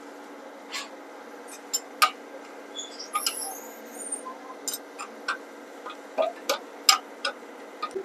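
Ratchet socket wrench tightening a nut on a baler's chain-drive sprocket: irregular sharp metallic clicks and taps, a dozen or so spread over several seconds, over a faint steady hum.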